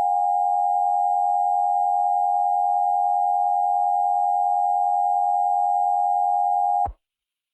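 Emergency Alert System attention signal: a steady two-tone alarm held unbroken, cutting off abruptly about seven seconds in.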